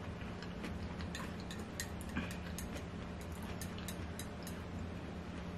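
Scattered soft clicks of chopsticks against a small ceramic bowl as noodles are picked up, over a steady low room hum.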